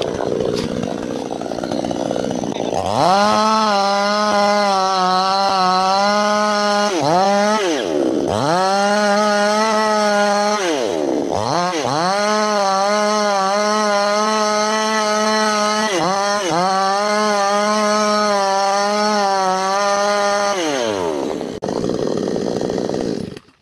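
Two-stroke gasoline chainsaw cutting into a large tree trunk. After a rough, noisy start, the engine revs up about three seconds in to a high, steady buzz. Its pitch plunges twice and climbs back again. Near the end the revs fall away and the sound cuts off suddenly.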